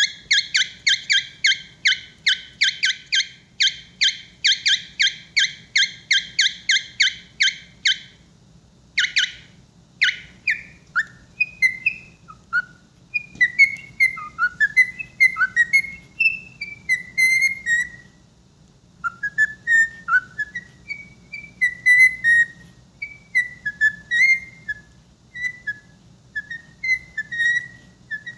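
Pet bird's warm-up at the start of its singing: a rapid, repeated high beep about three times a second for some eight seconds, then two single beeps. After that come varied whistled chirps and short warbles that swoop up and down.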